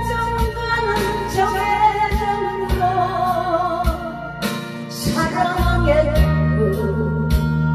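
A woman singing a slow, wistful song into a handheld microphone over a backing track with guitar, bass and a steady drum beat.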